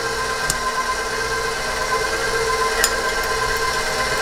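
KitchenAid stand mixer running at a steady speed, its motor giving a constant whine as the beater works an egg white batter. A couple of light clicks sound over it.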